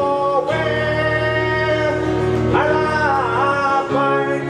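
A man singing a slow ballad, holding long notes that bend between phrases, over a steady instrumental backing.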